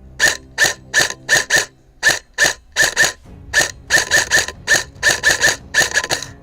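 Airsoft gun firing fast single shots, about twenty in quick irregular strings, each a short sharp crack with the mechanism cycling.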